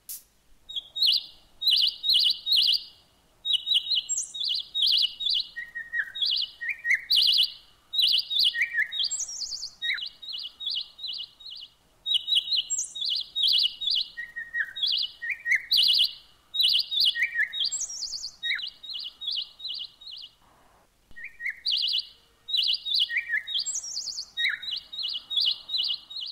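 A songbird singing in repeated bouts of rapid high chirps, mixed with short downward-sliding notes and a few higher whistles, with brief pauses between the bouts.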